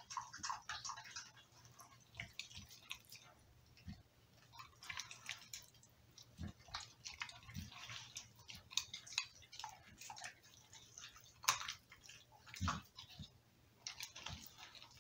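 A pit bull licking and chewing a piece of raw Cornish hen on the floor: faint, irregular wet smacks and clicks, a few louder ones near the end.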